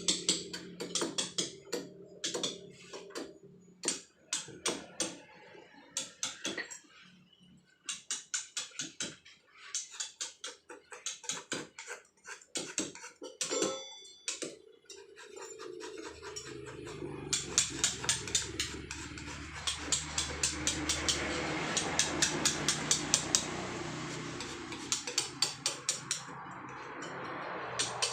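Steel chisel struck with a hammer, carving soft paras Jogja stone by hand: runs of sharp taps, several a second, broken by short pauses.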